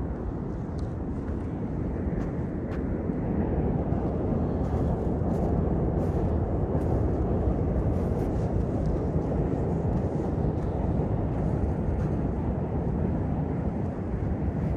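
Steady low rumble of city traffic in the open air, swelling a little in the first few seconds, with a few faint ticks now and then.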